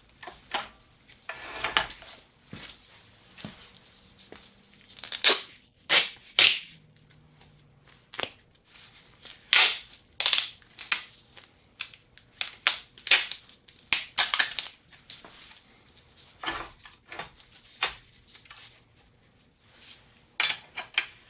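Hook-type strut spring compressors being handled and fitted onto a strut's coil spring: a scattered series of sharp metal clicks and clinks.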